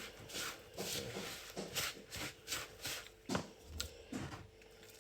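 A spoon stirring and scraping potato purée flakes mixed with hot water in a bowl, in short rustling strokes about two a second.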